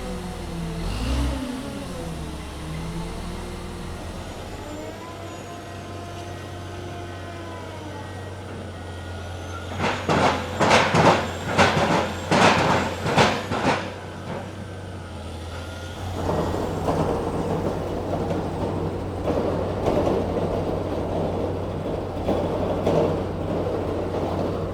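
Heavy construction machinery in sequence: a truck crane's engine rising and falling in pitch, then a drilling rig running, with a run of loud sharp knocks from about ten to fourteen seconds in, then from about sixteen seconds a pile driver working with dense, uneven rattling and pounding.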